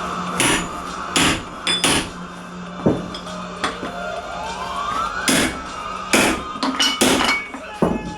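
A hammer striking a piece of angle iron to work a tyre off its rim: about ten irregular, sharp metal blows, each with a short ring.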